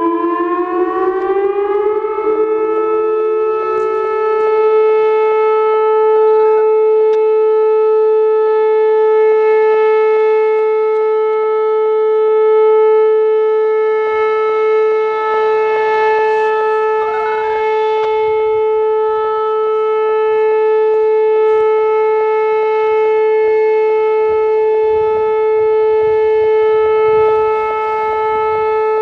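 Whelen WPS-2805 rotating electronic warning siren sounding a test. Its tone rises over the first two seconds, then holds a steady alert tone, slowly swelling and fading in loudness as the head rotates.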